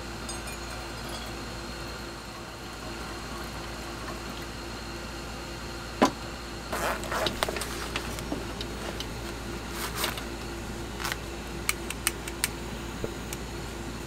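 Steady background hum, then, about six seconds in, a sharp click followed by rustling of a fabric tool pouch and a run of small metal clinks as multitools are handled in it.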